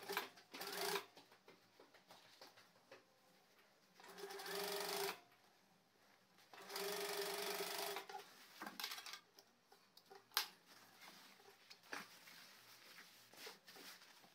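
Industrial lockstitch sewing machine stitching denim and pocket lining in short runs: a brief burst at the start, then two steady runs of about a second each, around four and seven seconds in. Between the runs there are small clicks and the rustle of fabric being repositioned.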